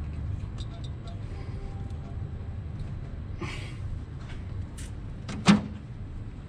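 Small clicks and handling noises of a hose and connector being pushed onto an alloy coolant header tank in an engine bay, over a steady low rumble. One sharp knock about five and a half seconds in is the loudest sound.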